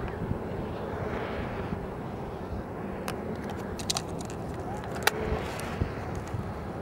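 Surf breaking on a beach, with a steady rumble of wind on the camcorder microphone and a few sharp clicks.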